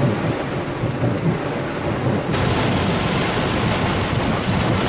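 Heavy rain pouring down in a thunderstorm, a steady hiss over a low rumble. The rain hiss turns suddenly louder about two seconds in.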